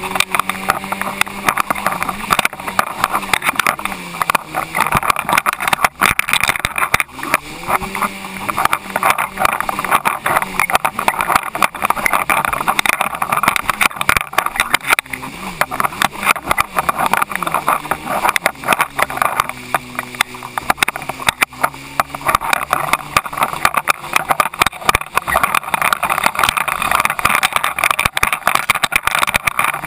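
Jet ski engine running at speed, its pitch rising and falling with the throttle, under a loud, continuous rush of spray and water.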